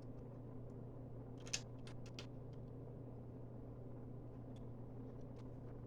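A few light clicks of plastic Lego pieces being handled during a build, the loudest about one and a half seconds in, over a steady low hum.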